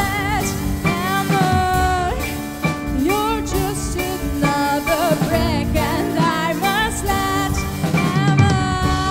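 Live band music: a woman singing a wavering melody with vibrato over piano chords and a drum kit.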